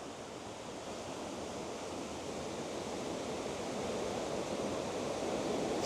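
A waterfall on the Moness Burn rushing steadily, growing gradually louder.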